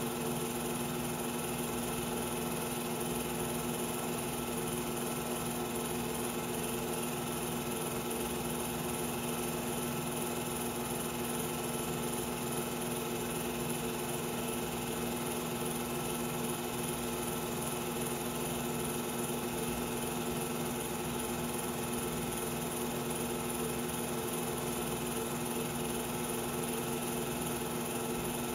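Film projector running: a steady motor whir with a constant hum and hiss.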